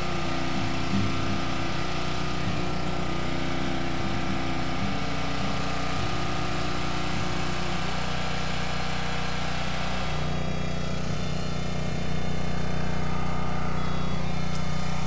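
Small engine running steadily on a bowfishing boat, with a constant hum that gets slightly louder about twelve seconds in.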